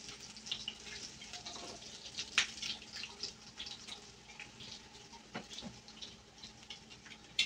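Hot oil sizzling and crackling in a frying pan as sardine-filled tortilla turnovers fry, with a few sharper clicks of metal tongs as the pieces are turned.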